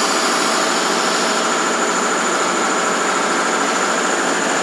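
Steady, even machine noise with faint high steady whines running through it, from workshop machinery.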